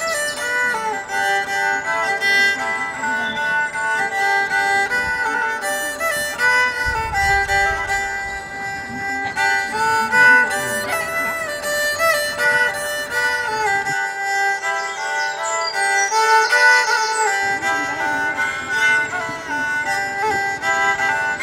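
Instrumental background music: a sustained melody of held notes over a steady accompaniment.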